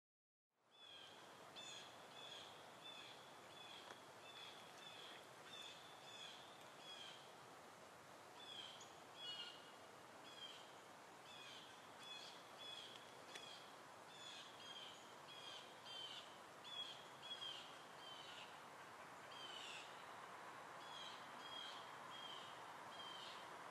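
A bird calling over and over in short, slightly falling chirps, about one and a half a second, over a faint steady hiss. The sound fades in just under a second in.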